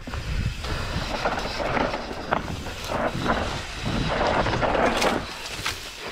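Mountain bike descending a steep, loose dirt trail: tyres crunching and skidding over loose dirt and stones, with repeated knocks and rattles from the bike over bumps and a low wind rumble on the microphone.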